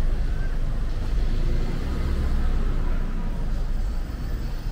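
Street traffic: a low, steady rumble of a motor vehicle passing close by, loudest about two seconds in.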